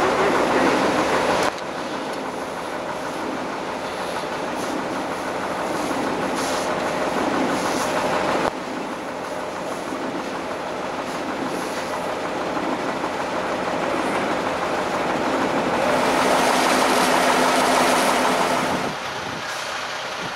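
Fire trucks' diesel engines running steadily, a constant rumble mixed with hiss. The sound shifts abruptly about a second and a half in, again about eight seconds in, and near the end.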